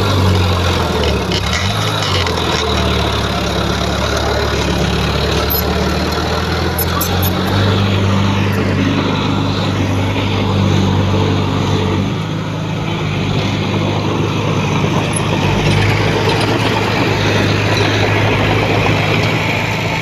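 Heavy diesel engine of a construction machine running steadily under load, its low drone shifting in pitch a few times, with a few faint clicks about six seconds in.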